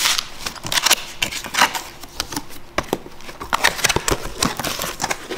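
A cardboard box being turned over and its flaps pulled open: an irregular run of scrapes, taps and rustles.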